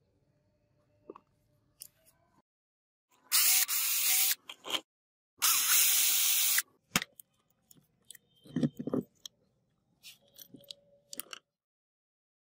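An electric drill-driver runs in two bursts of about a second each, backing screws out of a jigsaw's housing. Clicks and a few knocks follow as the loose screws and parts are handled.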